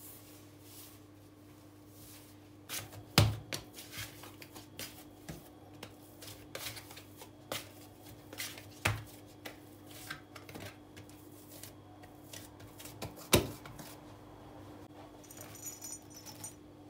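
Hands working soft cookie dough on a granite countertop: irregular soft pats, slaps and squishes, with three louder thumps of the dough on the stone about three, nine and thirteen seconds in. A steady low hum runs underneath.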